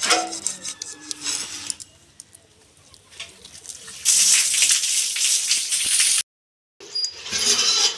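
A snakehead fish being scraped and cut against a boti's curved blade: rasping scrapes and wet handling of the fish, loudest from about four seconds in, then breaking off briefly. A bird calls in the background.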